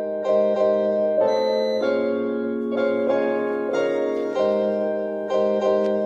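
Bugani M118 Bluetooth speaker playing a copyright-free song at about 40% volume: slow, sustained keyboard chords that change every half second to a second or so.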